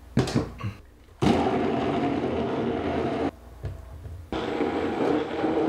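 Electric blender running, pureeing boiled rice-cake slices with their cooking water into a thick batter. It starts about a second in, stops for about a second near the middle, then runs again.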